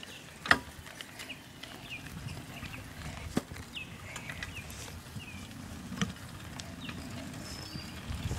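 Outdoor ambience: a steady low rumble with scattered clicks and taps and a few short high chirps.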